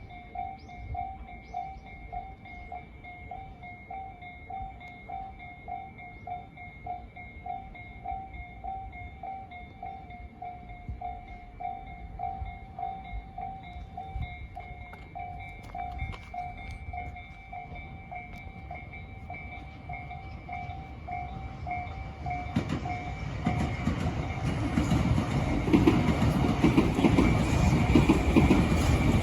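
Japanese level-crossing warning bell ringing, a steady repeating ding. About three-quarters of the way in, a train arrives and runs over the crossing, growing louder until it drowns out the bell.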